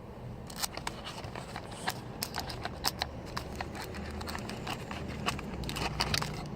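Packaging being handled as a sealed trading-card box is opened: a dense run of irregular crackles and clicks, like plastic wrap crinkling and tearing.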